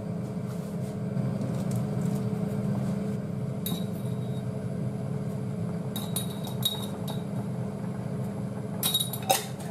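Metal spoon clinking against a small glass jar several times while powdered seasoning is scooped out. A steady low hum runs underneath.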